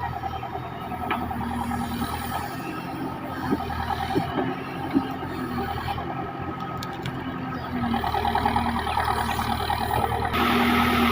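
JCB 3DX backhoe loader's diesel engine running steadily, with a few short knocks in the middle. It gets louder about eight seconds in and again near the end.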